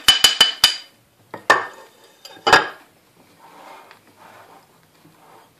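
A spoon and a glass bowl clinking against a ceramic bowl: a quick run of clinks, then two single knocks, then faint scraping as dried fruit is stirred into flour.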